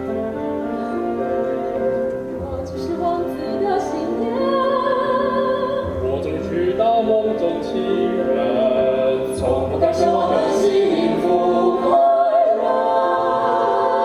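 Musical-theatre singing with vibrato over instrumental accompaniment, a low bass note sounding about every three and a half seconds.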